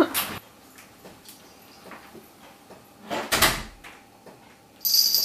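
A door shutting with a single thud about three seconds in. A brief high hiss follows near the end.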